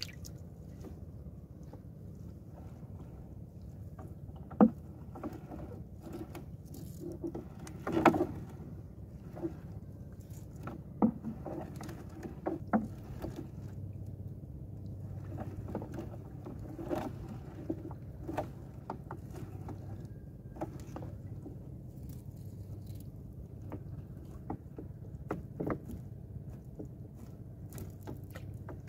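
Gill net being hauled by hand into a wooden outrigger canoe: water patters and drips off the net, with scattered irregular knocks against the hull, over a steady low rumble.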